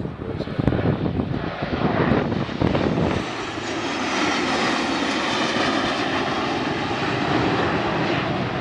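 A formation of four F/A-18 Hornet jet fighters flying past, their jet engine noise loud throughout. Uneven and gusty for the first three seconds or so, it then settles into a steady, even jet noise.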